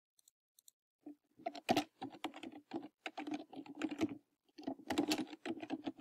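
Typing on a computer keyboard: a quick, uneven run of keystrokes starting about a second in.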